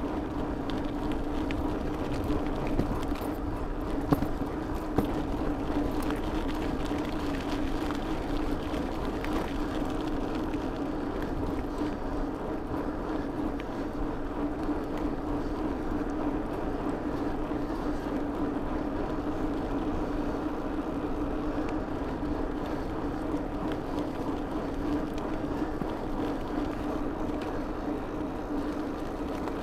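A bicycle rolling steadily along a rough asphalt road: constant tyre-on-road noise with a steady hum, and a few sharp clicks between about three and five seconds in.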